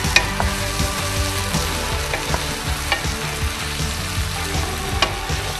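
Sliced mushrooms and zucchini sizzling in a frying pan as they are stirred with a wooden spatula, which clicks against the pan now and then.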